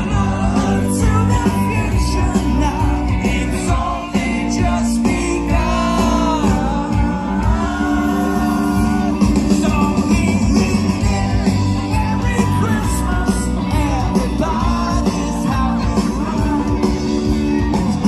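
Live rock band playing loudly, with a singer, guitars and a steady bass line.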